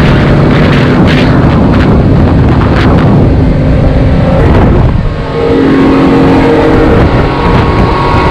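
Yamaha 250 V6 outboard running the Bulls Bay 2400 bay boat at speed, with rushing wind and water. There is a brief dip in level about five seconds in, after which the engine hum is higher-pitched.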